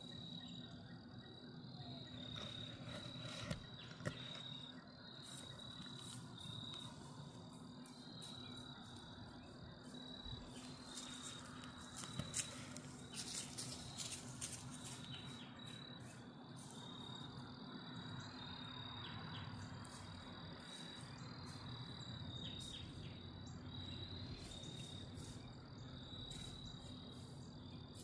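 Insects chirping in a steady, high trill that breaks into repeated pulses. A few short clicks and rustles stand out about three to four seconds in and again around the middle.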